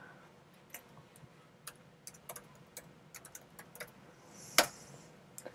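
Computer keyboard keys being typed, a dozen or so light, scattered clicks, with one sharper key strike a little over four seconds in.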